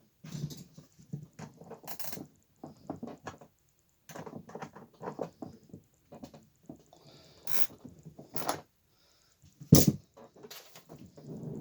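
Wrench and hardware handling while a 14 mm axle nut on a Packout wheel is tightened: bursts of small metal clicks and knocks with pauses, and one sharp knock nearly ten seconds in.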